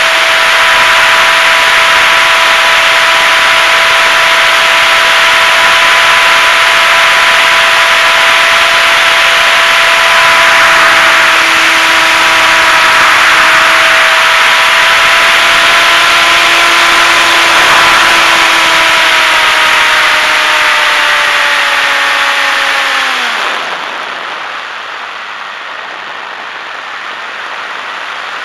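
Electric motor and propeller of a HobbyZone Super Cub RC plane running with a steady whine over loud wind rush on the onboard camera. About 23 seconds in, the whine slides down in pitch and stops as the motor winds down, leaving quieter wind noise as the plane glides.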